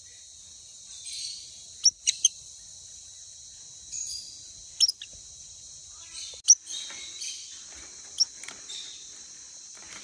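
Lovebirds giving short, sharp, high chirps during beak-to-beak feeding: a quick run of three about two seconds in, then single chirps near five, six and a half and eight seconds, the one near six and a half the loudest.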